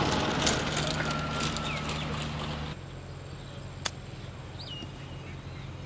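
Noisy outdoor sound with a low hum stops abruptly a little under three seconds in, leaving quieter ambience with a few scattered bird chirps. About a second after the cut comes a single sharp click: a golf club striking the ball on a short chip shot.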